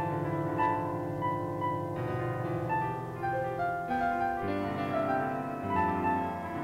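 Piano music: a steady, unbroken run of notes.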